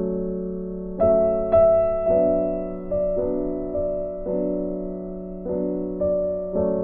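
Slow piano music: chords struck about once a second, each ringing and dying away.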